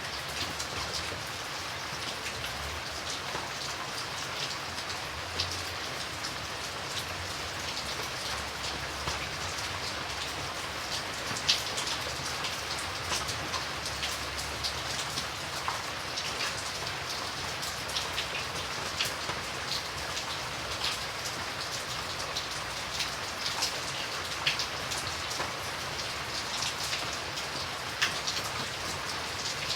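Steady rain falling, an even hiss with many sharp drops tapping close by, a few of them louder. A faint low rumble lies under it for a stretch in the middle.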